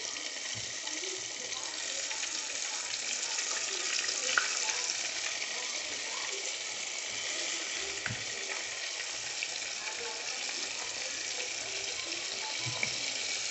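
Flour-dredged tilapia fillets deep-frying in hot oil in a pot: a steady sizzle with small pops here and there.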